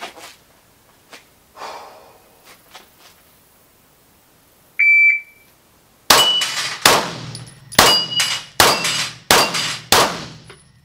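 A shot timer beeps once, and about a second later a Glock pistol fires six shots, a little under a second apart, at a rack of steel plates. Plates clang and ring on the hits; two of the six shots miss.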